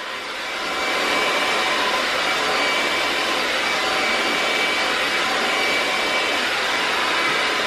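Handheld hair dryer running on a section of hair: a steady rushing blow with a faint high whine. It grows louder over about the first second, then holds steady.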